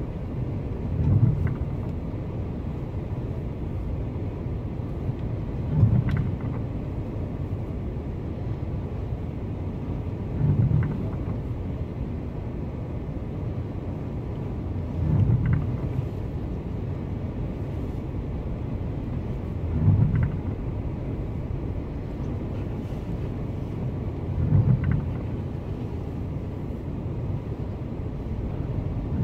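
Storm wind and surf heard as a steady low rumble from inside a car, with a low thump swelling up very regularly about every five seconds, seven times.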